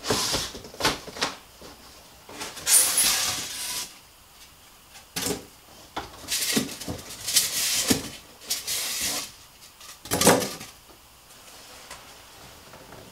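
Cardboard box and white foam packing blocks being handled and pulled out: bursts of rustling, scraping and knocking, with short pauses between them.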